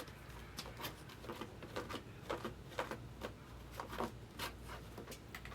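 Trading cards and their sleeves or packaging being handled on a table: faint irregular rustles, scrapes and light clicks, a few each second, over a low steady hum.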